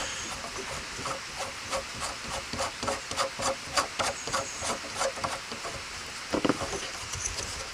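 Small irregular clicks and scrapes of a nut being threaded and snugged onto a new cam latch fitted to a boat's compartment lid, with a louder knock about six seconds in. A steady hiss of light rain runs underneath.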